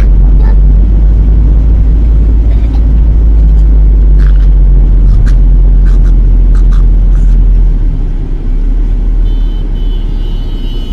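Low, loud rumble of a car's engine and road noise, picked up inside the cabin while driving and slowing down; the rumble eases off near the end as the car slows. A high-pitched tone sounds for about two and a half seconds near the end.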